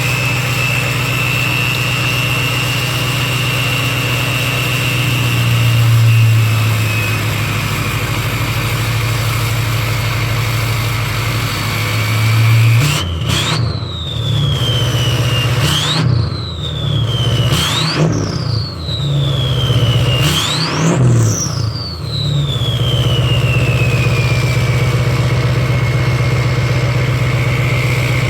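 2004 Ford 6.0 Power Stroke V8 turbodiesel idling with a steady high turbo whine from its Garrett PowerMax turbocharger. About halfway in, four quick throttle blips each make the turbo whine jump sharply in pitch and then wind back down; after the last blip, the whine spools down slowly to idle.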